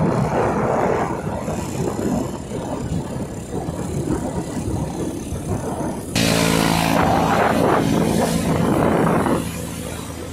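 Motorbike running along a mountain road, with wind noise buffeting the microphone. About six seconds in, the sound suddenly gets louder and hissier for around three seconds, then drops back.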